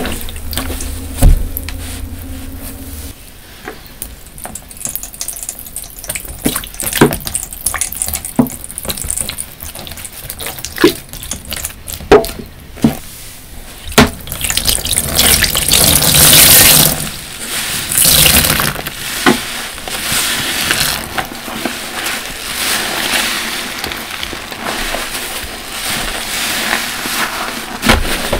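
Large soft car-wash sponges squeezed and pressed by hand in a tub of water, squelching and letting water run out, with a number of sharp wet smacks. About halfway through comes a loud hissing rush of water. By the end the sponges are being worked in thick dish-soap lather.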